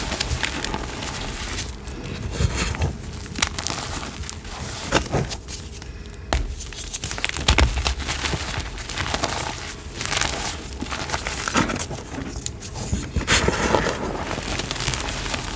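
Crumbly chalk-like blocks being crushed, a continuous irregular crunching and crackling with louder surges every second or two.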